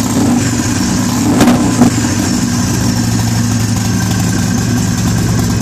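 2009 Harley-Davidson XR1200's 1200 cc air-cooled V-twin idling through a newly fitted aftermarket Vance & Hines exhaust, with two quick throttle blips about a second and a half in.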